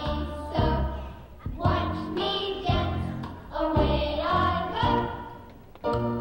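Recorded backing song with singing and a steady beat about once a second, played for a children's tap routine; the music dips briefly about five and a half seconds in.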